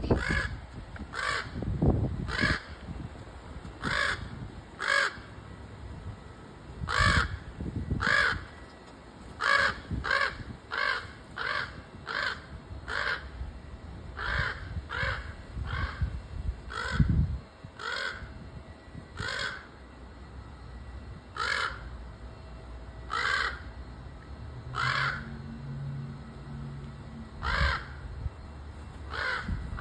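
Crows cawing: short, harsh calls repeated throughout, sometimes in quick runs of three or four. A few low thumps come between the calls.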